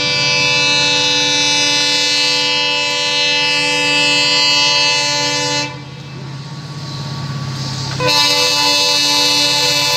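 Multi-tone air horn of a WDP4D diesel locomotive blowing a long continuous blast as the train approaches a level crossing, a warning to the crossing. It breaks off a little past halfway. The rumble of the approaching train grows for about two seconds, then the horn sounds again.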